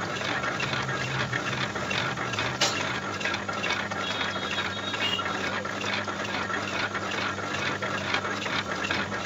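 Metal lathe running with a rotavator housing spinning in the chuck while a boring bar cuts its bearing bore: a steady motor hum under a fast, even clatter from the cut, with one sharp click a little over two seconds in.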